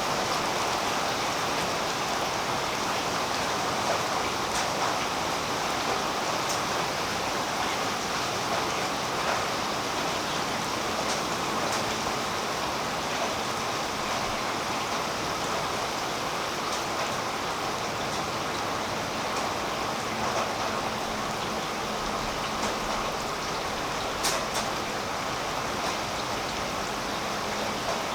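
Steady rain falling on a tree, a continuous even hiss with the odd sharper drop standing out now and then.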